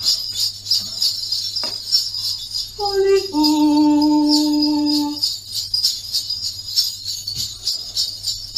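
Jingle bells shaken in a steady rhythm, the sleigh-bell sound that heralds St Nicholas's arrival. About three seconds in, a single note is held for about two seconds, dipping slightly as it starts.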